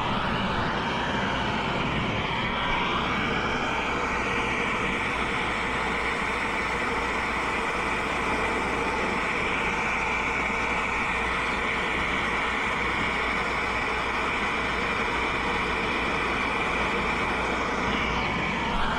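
Turbo torch burning with a steady hiss while it heats copper refrigerant line joints for brazing.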